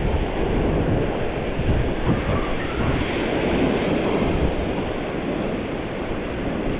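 Ocean surf breaking and washing, with wind buffeting the microphone: a steady, loud rushing noise.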